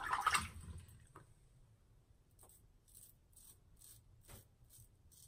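Merkur 34C double-edge safety razor with a Treet Black Carbon blade scraping through lathered stubble in short, faint strokes, about two a second, starting about two seconds in. A brief rush of noise comes first.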